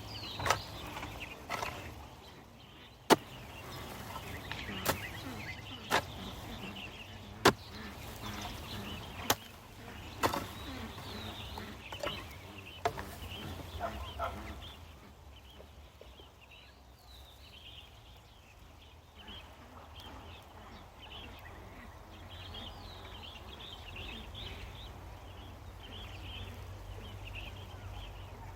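A hand digging tool striking into the soil: sharp strokes about every one to two seconds, stopping about halfway through. Faint bird chirps continue behind.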